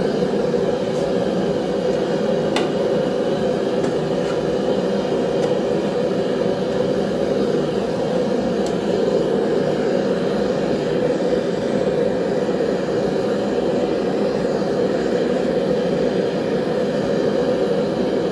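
Knife-making forge running steadily while blades heat in it for annealing: a loud, even rushing noise of flame and air that does not change, with one faint tick about two and a half seconds in.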